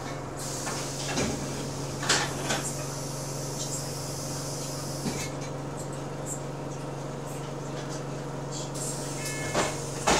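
Bus diesel engine idling, heard from inside the passenger saloon as a steady low hum. Short knocks come about two seconds in and again near the end.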